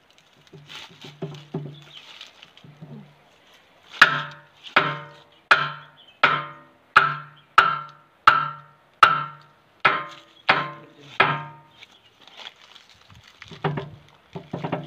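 Hammer striking the steel pin of a JCB backhoe bucket to drive it through the bucket's pin bore. A few light taps, then a few seconds in a run of about eleven hard ringing blows, roughly one every 0.7 s, that stops about two-thirds of the way through.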